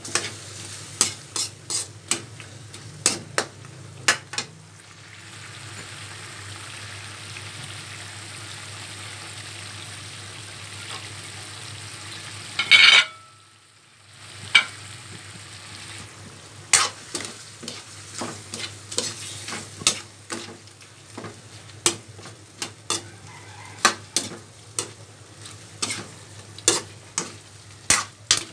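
Chicken sizzling as it fries in a metal wok while a metal ladle stirs it, knocking and scraping against the pan in quick irregular clicks. Midway the stirring pauses for a stretch of steady sizzling, broken by a brief loud burst and a short drop-out about thirteen seconds in. Then the clacking stirring resumes.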